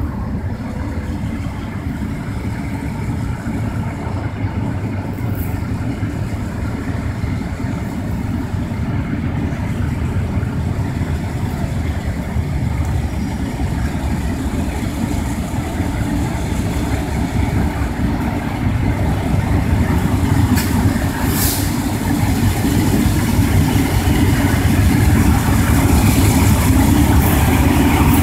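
Two diesel freight locomotives' engines running as they approach slowly along street track, with a deep low rumble that grows steadily louder.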